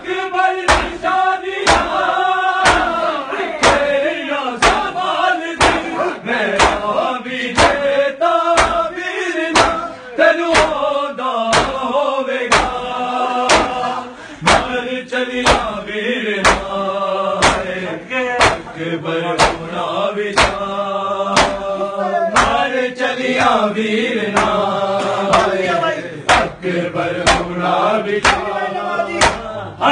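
Men chanting a nauha mourning lament, with sharp rhythmic strikes of hands on bare chests (matam) landing about once a second.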